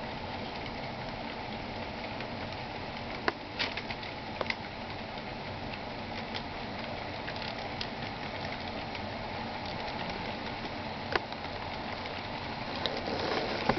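Steady hiss of background noise with a few scattered sharp clicks, and a model freight train's running noise on the track rising a little near the end as the locomotive draws closer.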